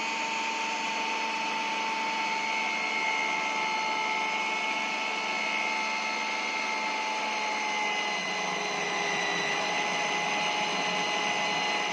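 Electric kitchen mixer motor running steadily as it kneads chapati dough from wheat flour, oil and salt, its whine sinking slightly in pitch over the run.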